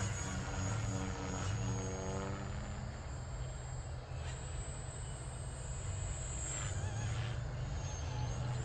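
Radio-controlled aerobatic airplane's motor and propeller droning overhead, the pitch shifting up and down as it maneuvers.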